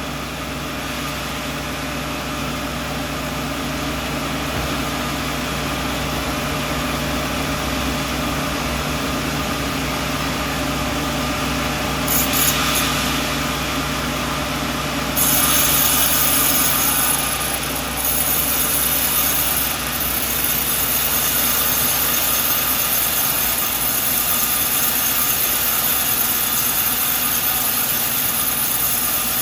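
Sawmill running with a steady engine hum. About halfway through, the blade cuts into a coconut log, adding a loud, high sawing hiss that carries on to the end with a couple of brief dips.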